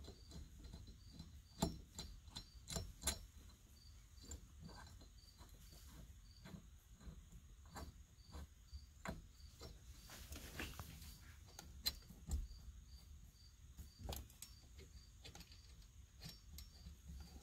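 Light, scattered metallic clicks and taps of small bolts and steering-hub parts being handled and fitted by hand, a few of them sharper. A faint high chirp repeats about twice a second throughout.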